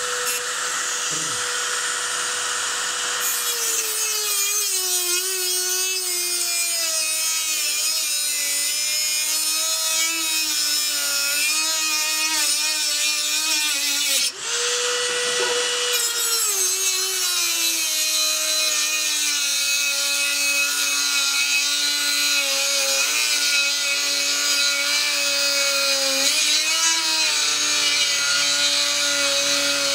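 Dremel rotary tool with a reinforced cut-off wheel cutting through the rusted steel rod of an exhaust hanger. Its steady high whine drops in pitch and wavers as the wheel bites into the metal under load. About halfway through it briefly stops, spins back up to the free-running pitch, then drops again as the cut continues.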